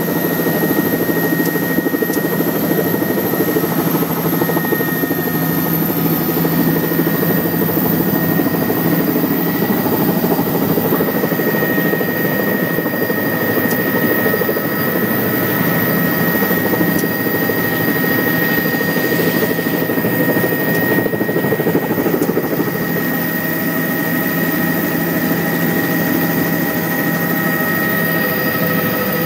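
Helicopter engine and rotor noise heard from inside the cabin: a steady loud rumble under a high whine, which rises a little about five seconds in.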